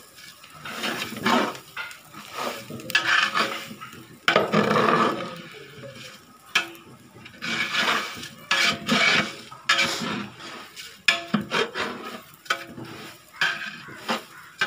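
Metal spatula scraping and knocking against the inside of a large aluminium pot while stirring a potful of biryani rice, in irregular strokes.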